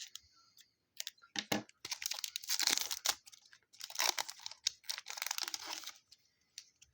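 Trading card pack wrapper being torn open and crinkled by hand: two long rustling stretches, with short clicks and crackles between them.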